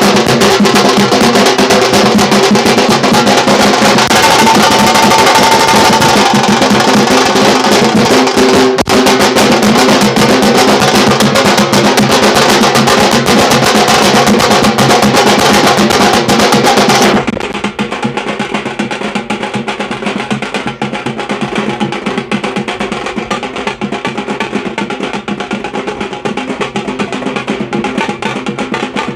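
Procession band drums played with sticks in a fast, dense roll, loud and continuous. A bit over halfway through the sound abruptly drops in loudness and turns duller.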